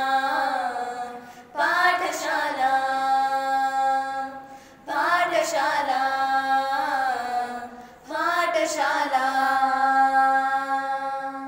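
A solo voice singing a slow melody in long held phrases, with no clear words. There are about four phrases, each opening with a short melodic turn and then settling on a long sustained note.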